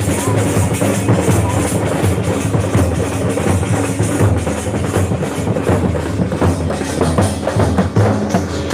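Loud music with a heavy drum beat over steady bass.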